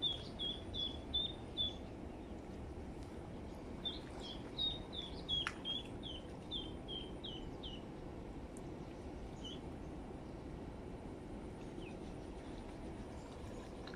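Duckling tethered as live snakehead bait, peeping in short, falling chirps about three a second: a run at the start and another from about four to eight seconds in, over a steady outdoor hiss.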